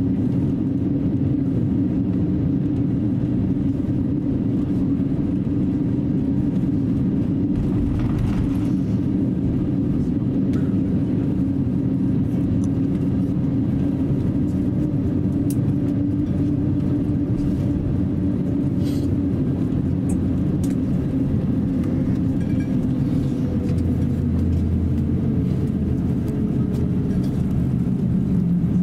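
Steady low drone heard inside the cabin of an Airbus A350-900 taxiing, its Rolls-Royce Trent XWB engines at taxi power, with a few faint ticks.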